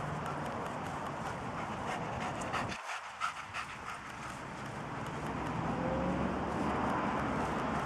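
A dog panting in quick breaths, clearest around the middle, over a steady rushing background.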